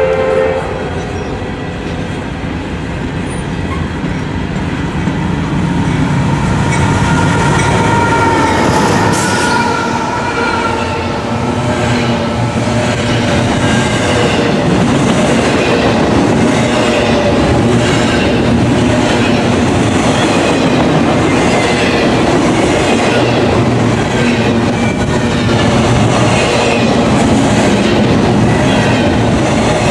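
Two freight trains passing on adjacent tracks: an empty coal train rolling by while a double-stack container train comes up on the near track, growing louder over the first few seconds as its locomotives pass. Several steady high tones ring out for a few seconds about a quarter of the way in, and from then on the container cars' wheels clatter rhythmically over the rail joints.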